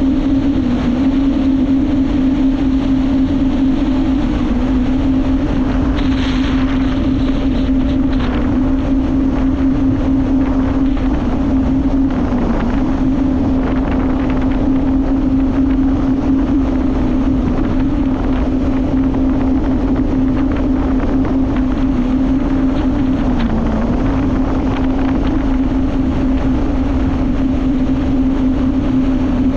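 Jet ski engine running at a steady cruising speed, its drone holding an even pitch, with wind buffeting the microphone and water rushing past the hull.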